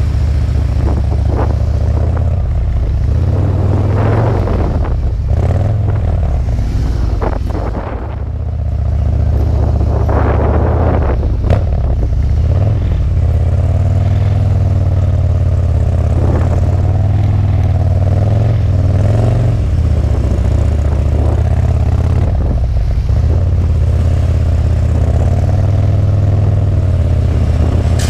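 Harley-Davidson V-twin motorcycle engine running at low speed through slow, tight cone turns, its pitch wavering up and down with the throttle. There are brief rushing noises about four and ten seconds in.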